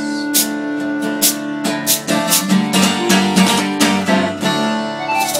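Acoustic guitar strummed in a steady rhythm, with a hand-held can shaker marking about two beats a second.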